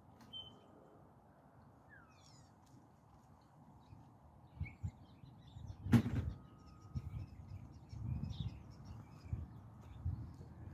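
Small birds chirping now and then, with one sharp knock about six seconds in and irregular low thuds around it.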